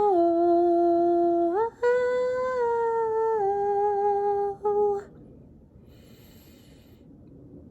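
A woman humming the closing notes of a folk melody, unaccompanied. She holds a few long notes that step up and then back down, and stops about five seconds in, leaving faint room tone.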